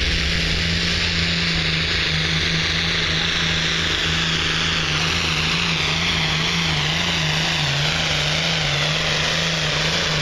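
John Deere farm tractor's diesel engine running flat out under load as it drags a weight sled, pouring black smoke from the stack. The engine note holds steady at first, then wavers and dips slightly in the second half as the pull goes on.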